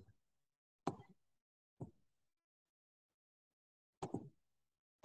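A few short, faint clicks against near silence, about a second apart at first, then a closely spaced pair about four seconds in: a computer mouse being clicked while working the software.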